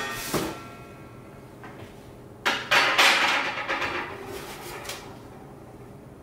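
Unpacking metal brewing-system parts from a cardboard box: a sharp metallic knock with a brief ring at the start and a second knock just after, then a louder stretch of rustling and scraping about two and a half seconds in that fades over the next two seconds.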